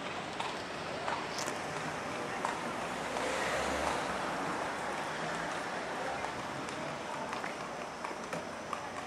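Street ambience: a steady haze of traffic noise that swells about three to four seconds in, with faint voices and scattered light clicks.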